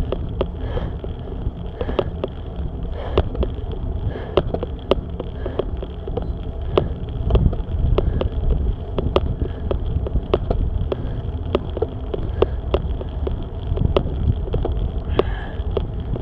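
Bicycle climbing a rocky road: wind buffets the microphone with a steady low rumble, the bike rattles and clicks sharply and irregularly as it jolts over stones, and the rider breathes heavily.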